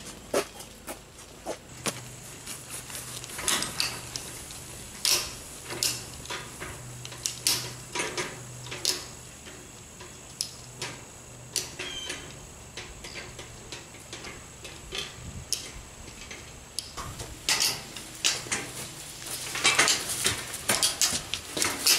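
Irregular metallic clanks and rattles from a bare steel-tube go-kart frame being dragged and manoeuvred, with a denser run of knocks near the end.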